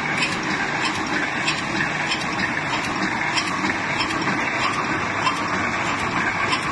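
Automatic welded wire mesh machine running: a steady mechanical clatter with sharp clicks repeating about twice a second.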